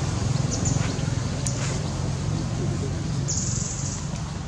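A steady low rumble, with a few brief high chirps and a short high hiss near the end.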